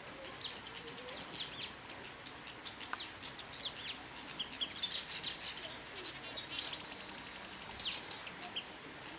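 Weaver birds chattering: a run of quick, high chirps and twitters, busiest around the middle, with a brief buzzy trill about seven seconds in.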